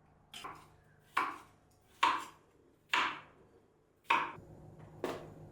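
Six sharp knocks, about one a second, each with a short ringing decay; a low steady hum comes in about four seconds in.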